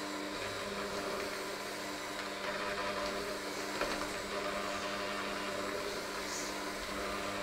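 Electric hand mixer running steadily, its dough hooks working crumbly dough in a stainless steel bowl.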